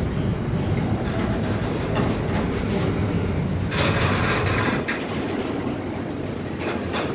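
Freight train wagons loaded with shipping containers rolling past close by: a steady rumble of steel wheels on the rails with clacking over the rail joints. About four seconds in, a louder, harsher rattle lasts about a second.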